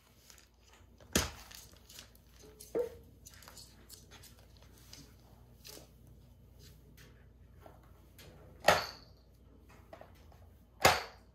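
A plastic jar being pushed about and knocked over on a wooden floor by an African grey parrot: four sharp knocks, two in the first few seconds and two near the end, with small clicks of beak and claws in between.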